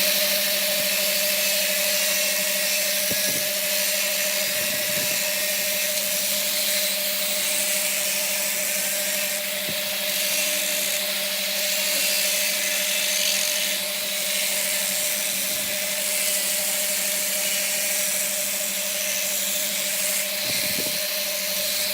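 Wood lathe running with a steady motor hum, under a continuous hiss of the spinning wood being worked.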